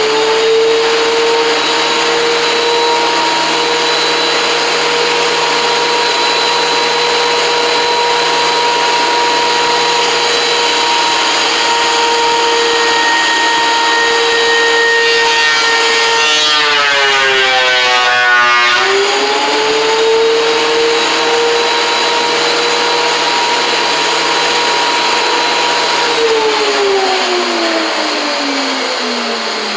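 Electric benchtop thickness planer running: the motor's whine bogs down in pitch for a few seconds as a rough-cut cedar board feeds through the cutterhead, comes back up to speed, then the planer is switched off and winds down near the end.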